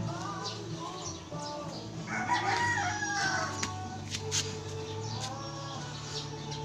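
A rooster crows once, starting about two seconds in, in one call lasting about a second.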